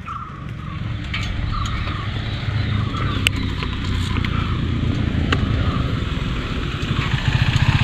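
Motorcycle engine idling with a steady low pulse, getting louder toward the end, with two sharp clicks in the middle.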